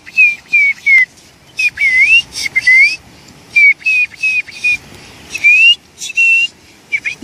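A little boy whistling in imitation of a bird: a string of short high chirps, a few swooping down and back up, in quick bunches with brief pauses between them.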